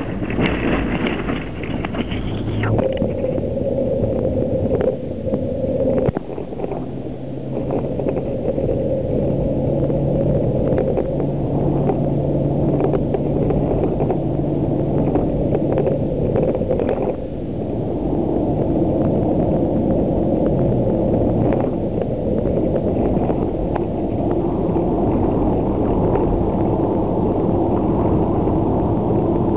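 Vehicle driving on a dirt road, heard from inside the cabin: a steady engine drone and tyre noise, with scattered small knocks and rattles.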